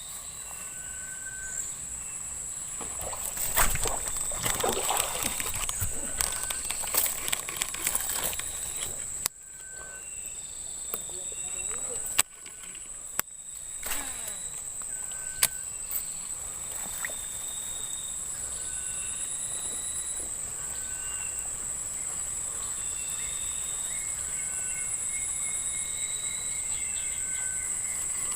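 Outdoor ambience of a steady high-pitched insect drone with short, repeated bird whistles at a few different pitches, and a burst of sharp clicks and rustling or splashing about three seconds in that dies away by about nine seconds.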